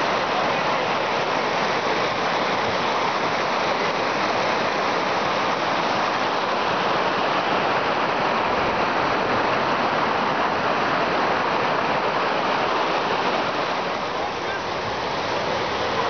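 A fast mountain stream rushing over rocks: a steady hiss of water.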